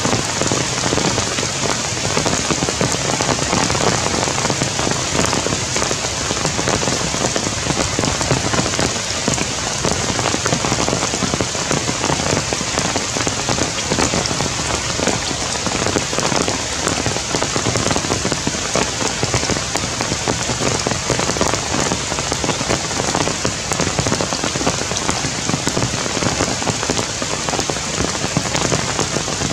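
Heavy rain falling steadily on tree foliage, a dense patter of drops that holds at a constant level.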